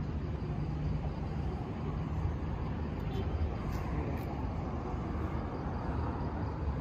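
Steady low rumble and hiss of distant road traffic, without any single passing vehicle or event standing out.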